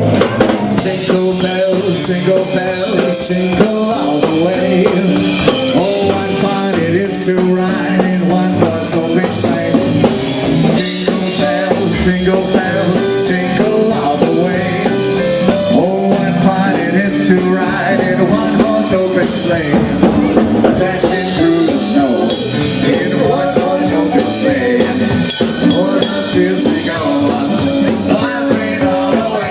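Band music with a drum kit and singing on a steady beat.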